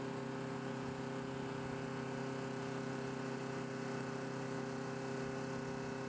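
Steady machine hum with several constant tones over a light hiss, from equipment running on an airfield flight line.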